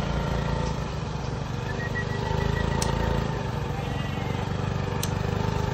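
Small motorbike engine ticking over low and steady at walking pace. Two sharp clicks sound, about three and five seconds in.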